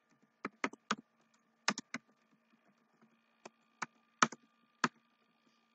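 Computer keyboard being typed on: single key clicks and short irregular runs of keystrokes with pauses between, over a faint steady hum.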